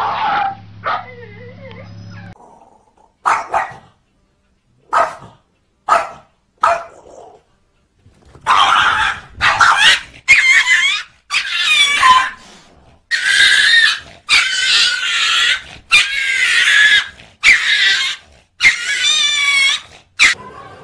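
Pets clashing, a dog among them. A few short, scattered cries come in the first half, then a run of about a dozen loud, shrill cries, each about a second long and wavering in pitch.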